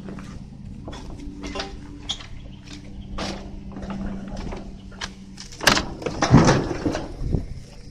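Close handling noises while a caught fish is held and readied for release: scattered clicks and rustles, then a louder burst of rustling and knocking about six seconds in, over a steady low hum.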